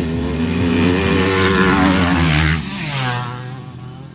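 Enduro racing motorcycle engine running hard at high revs as it passes close by, loud for about two and a half seconds, then dropping off with its pitch falling as it moves away.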